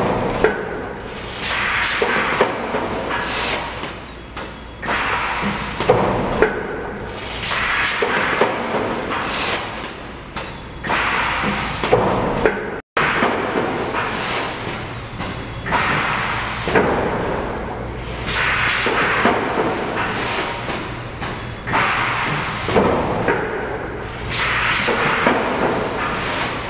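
Thermoforming machine running through its cycle: repeated surges of compressed-air hiss from its pneumatic valves and cylinders, a second or two apart, with sharp metallic clunks and knocks as the forming station moves, over a steady low machine hum.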